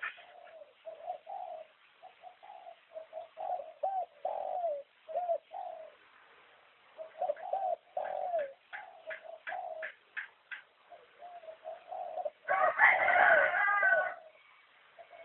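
Spotted dove (terkukur) cooing: repeated phrases of short, arched coos with brief pauses between them. Thin sharp ticks come between the phrases, and a louder noisy burst over the cooing comes near the end.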